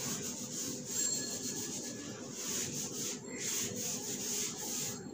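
A handheld whiteboard eraser rubbed back and forth across a whiteboard, wiping off marker writing.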